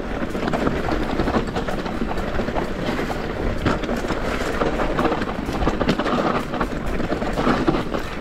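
Rocky Mountain Instinct full-suspension mountain bike rolling down a stony singletrack: tyres crunching over loose rocks and the bike rattling, a dense, continuous clatter of small knocks.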